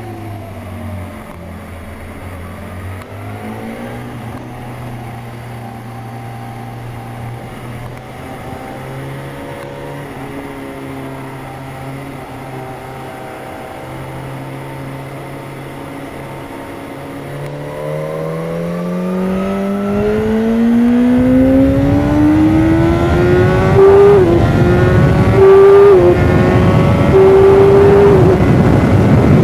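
Sport bike's inline-four engine, heard onboard, held at a steady low pitch in second gear through a slow corner. About two-thirds in it goes to full throttle, revving higher and louder, with about three quick upshifts, each a brief dip in pitch. Wind rush on the microphone builds as speed climbs.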